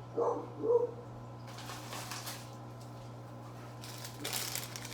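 A dog gives two short barks in quick succession, then there is intermittent rustling over a steady low hum.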